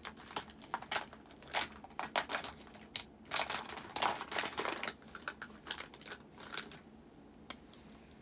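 Small items, makeup among them, being rummaged through and handled close to the microphone: a quick, irregular string of clicks, taps and rustles that thins out after about five seconds, with one last click near the end.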